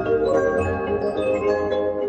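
Background music with quick mallet-percussion notes, a marimba or glockenspiel-like melody over a low bass.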